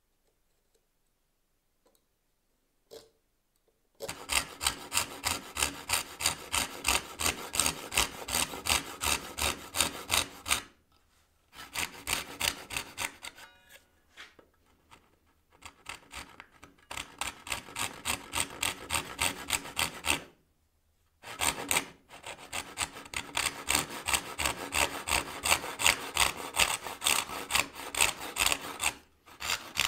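Backsaw cutting by hand through a small softwood block, in quick rhythmic strokes of about two to three a second. It starts about four seconds in and stops a few times for a second or so.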